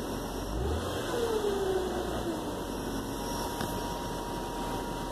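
2007 Nissan Maxima's 3.5-litre V6 running with a whining noise over a low rumble: a faint tone slides down in pitch about a second in, then a thin steady high whine sets in about halfway. The alternator has just been replaced, so the owner has ruled it out as the cause.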